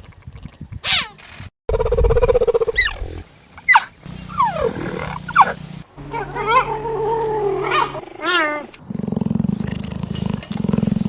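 Animal calls in several short spliced clips: pitched cries and chirps that glide up and down, and a steady pulsing low rumble near the end.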